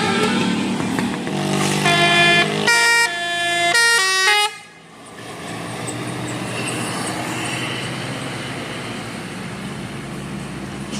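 A bus's telolet horn, a multi-tone musical air horn, plays a quick tune of changing notes for about three seconds, starting about a second in and cutting off suddenly. A steady engine hum and road noise carry on after it.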